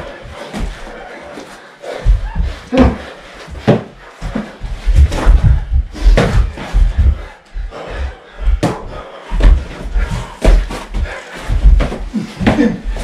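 Boxing gloves smacking against bodies and gloves during sparring, with heavy footsteps thudding on the floor: irregular hits and thumps, several in quick succession at times.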